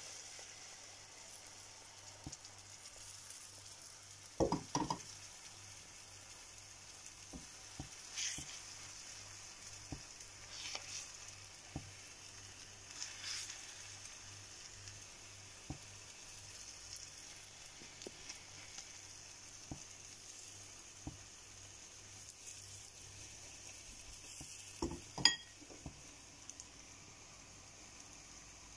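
Gram-flour and egg batter sizzling steadily as it fries in butter in a pan. A couple of sharp knocks on the pan stand out, about four seconds in and again near the end.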